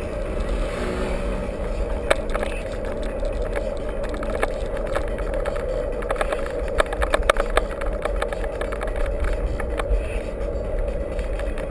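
Steady wind rumble on the microphone of a camera riding on a mountain bike, with scattered clicks and knocks from the bike rattling over rough ground, busiest a little past the middle.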